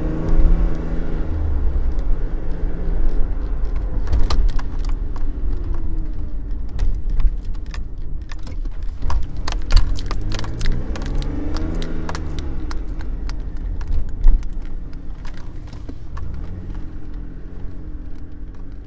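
Inside a moving car: steady engine and road rumble, the engine's pitch rising and falling, with the turn-signal indicator clicking through the middle.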